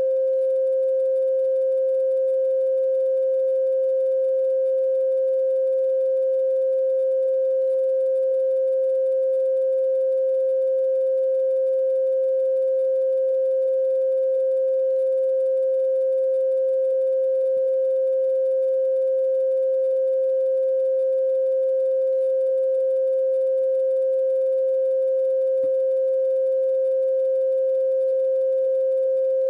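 A steady, mid-pitched pure electronic tone held without any change, with faint higher overtones above it.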